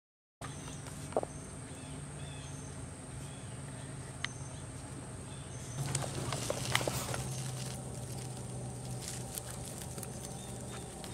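Rabbits nibbling leaves off a leafy branch, with crisp clicking and rustling, busiest about six to seven seconds in. Behind it a steady high-pitched hum and scattered short bird chirps; the sound starts after half a second of silence.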